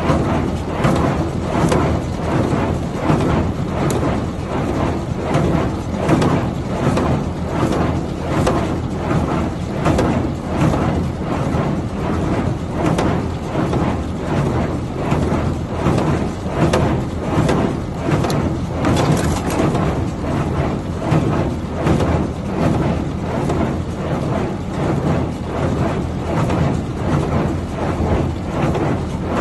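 Claas Dominant small square baler running on the tractor's PTO, its mechanism clattering in a regular rhythm over the steady hum of the tractor engine.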